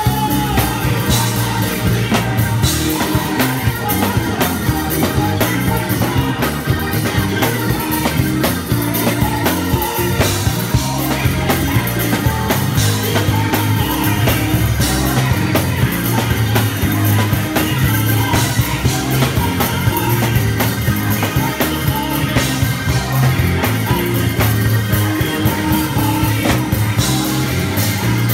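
Live gospel church band playing a fast, loud number: electric bass, electric organ and drum kit, with voices singing along.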